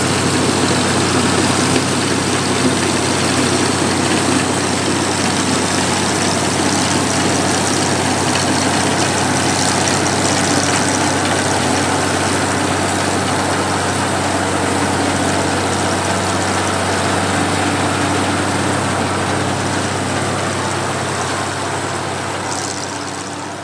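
Oliver 430 combine running steadily while harvesting wheat: a constant engine drone under the noise of the working machinery, fading down over the last few seconds.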